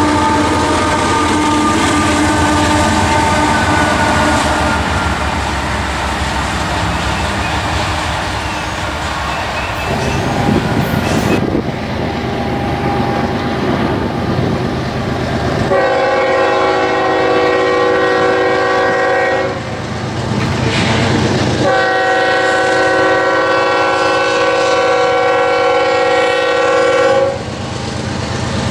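Freight train rolling past close by, diesel locomotive engine and steel wheels on the rails. Then a diesel locomotive's multi-chime air horn sounds two long blasts, the second about six seconds long, the standard warning for an approaching grade crossing.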